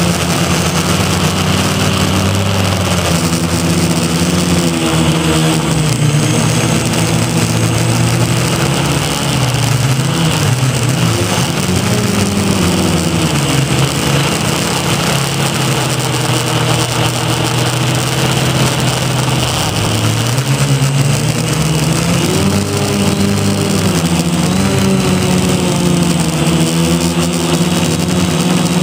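Electric motors and propellers of a Feiyu X4 quadcopter, heard through its onboard camera, buzzing steadily in flight. Their pitch rises and falls repeatedly as the throttle changes.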